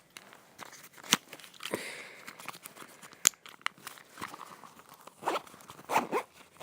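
A fidget cube being handled and packed into its case: rustling and scraping, with two sharp clicks about one and three seconds in and a few duller knocks near the end.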